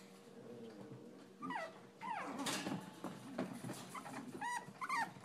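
Shichon (Shih Tzu × Bichon Frise) puppies whimpering in short, high calls that fall in pitch: a couple about a second and a half to two seconds in, and a quick run of shorter ones near the end.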